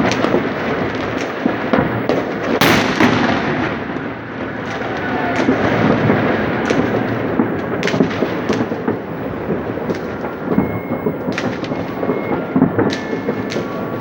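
Many fireworks going off at once, a continuous rumble of overlapping bangs with sharp cracks scattered through it. The loudest crack comes about three seconds in.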